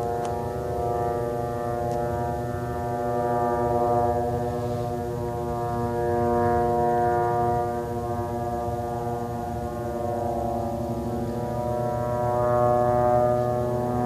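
Military drone's propeller engine droning steadily, one low buzzing pitch with many overtones that wavers slowly up and down.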